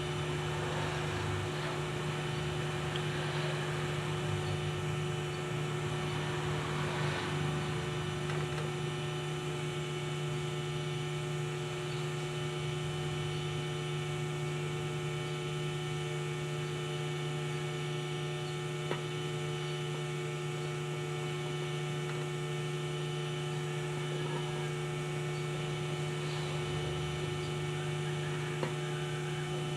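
Steady electrical hum made of several unchanging tones. Faint scratchy handling noises come in the first several seconds, and two light clicks follow later, one about two-thirds through and one near the end.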